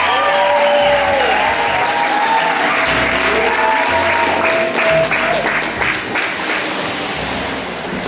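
Audience applauding over music, the clapping thinning and fading toward the end.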